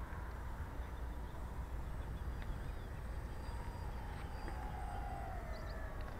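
Radio-controlled scale model of a Short S.23 Empire flying boat flying low past, its propellers giving a steady whine that slides down in pitch over the last couple of seconds as it throttles back to alight on the water. A constant low rumble runs underneath.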